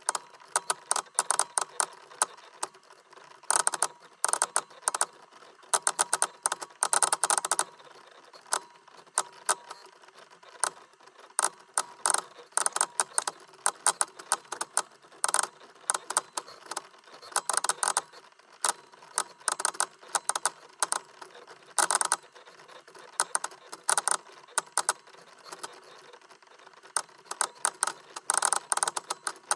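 Digital audio tape (DAT) machine glitching: irregular bursts of rapid crackling clicks over a faint hiss.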